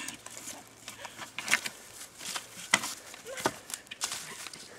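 Skis and ski poles clattering over a forest floor: irregular knocks and clicks with rustling as the skis are shuffled along and the poles planted.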